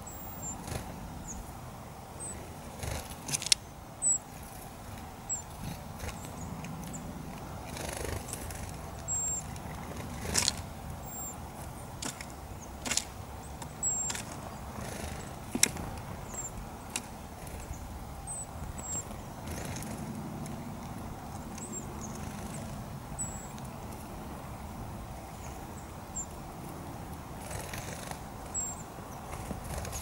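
Eurasian blackbird pecking and rummaging in seed on a wooden feeder tray: irregular sharp taps and clicks, a few of them loud, with a few short, faint, high chirps over a steady background hiss.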